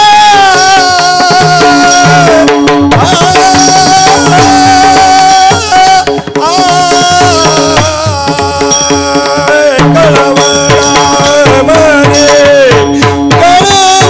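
Devotional Marathi abhang music: a long-held, gently gliding melodic line over a steady drone, with tabla strokes whose bass notes fall in pitch.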